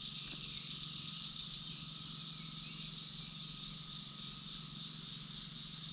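Steady campground ambience: a constant high-pitched chorus of calling wildlife over a low, even hum.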